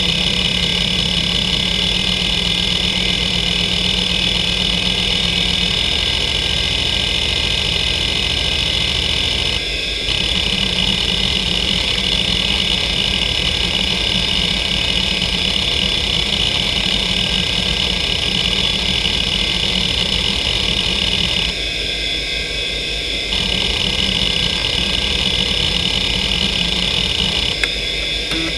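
Western Digital Caviar 2340 340 MB IDE hard drive seeking rapidly under the hdmotion test: a steady spindle whine under a dense, fast rattle of head-actuator seeks. The seeking breaks off briefly around ten seconds in, again for a couple of seconds later on, and stops near the end.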